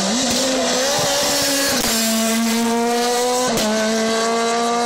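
Rally car engine under hard acceleration out of a corner, its pitch climbing steadily. Twice it drops back briefly at a quick upshift, each one marked by a sharp crack.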